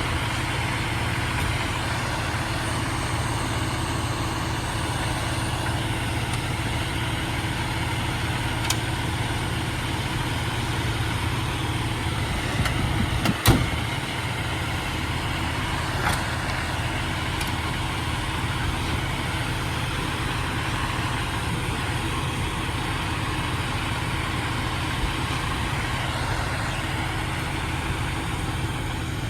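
A fire engine's diesel engine idling steadily, a constant low rumble with a steady hum above it, with a single knock about 13 seconds in.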